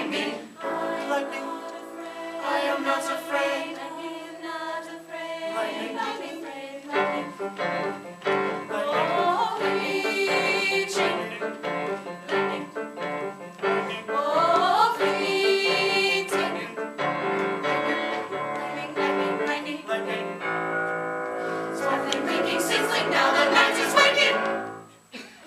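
Music: a choir singing sustained chords, with gliding voice lines twice in the middle.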